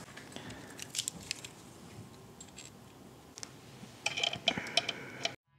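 Small metal mount parts of a Minn Kota Terrova trolling motor being handled and fitted together: scattered light clicks and taps, with a quick run of metallic clinks about four seconds in.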